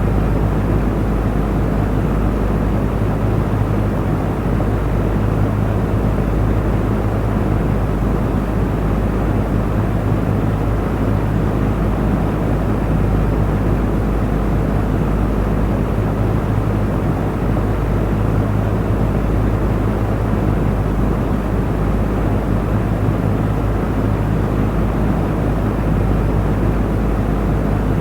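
Electric fan running steadily: an even rush of moving air with a low motor hum.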